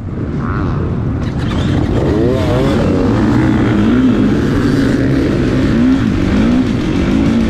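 KTM 350XC-F dirt bike's single-cylinder four-stroke engine revving hard as it pulls away from a motocross race start, its pitch rising and falling over and over, amid other dirt bikes' engines.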